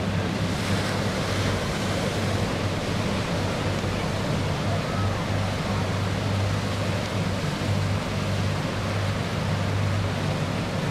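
Distant MH-53E Sea Dragon helicopter flying past: a steady low hum from its rotors and engines under a continuous wash of surf and wind noise.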